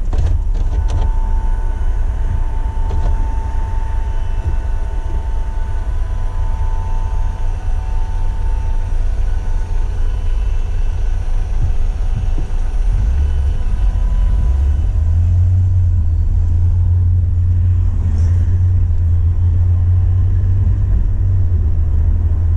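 Steady low road and engine rumble inside a moving car, growing heavier about two-thirds of the way through.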